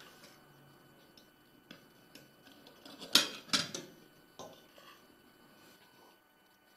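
Forks clinking and scraping on dinner plates: a few light taps, then two sharp clinks about three seconds in, the loudest sounds, and a softer one a little later.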